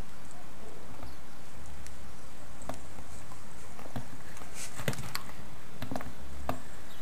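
Slider turtles (Trachemys scripta) crawling in a dry plastic tub, their claws and shells scraping and clicking on the plastic and the board: a scatter of light clicks, several close together about five seconds in and again near six.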